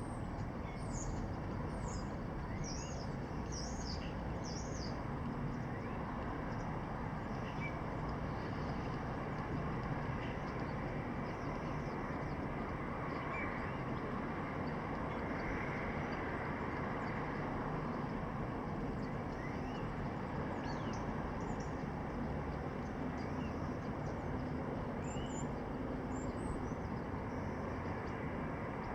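Steady city background noise, an even low hum, with small birds chirping over it in short, high calls: a quick run of chirps in the first few seconds and a few more near the end.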